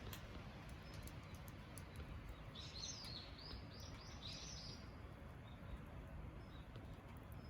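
Wood campfire burning, a low steady rumble with scattered faint crackles. A bird chirps several times in quick succession about three seconds in.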